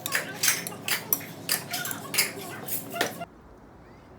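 Metal cutlery clinking against dishes in a quick, irregular run of sharp clinks that cuts off suddenly about three seconds in.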